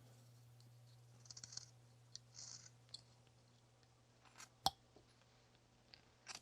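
Faint hand-tool carving: a blade slicing and scraping through basswood in two short strokes, with a few light ticks and one sharper click about two-thirds of the way in.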